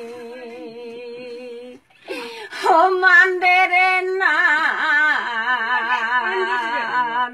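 An elderly woman singing unaccompanied, holding long wavering notes, with a brief break about two seconds in.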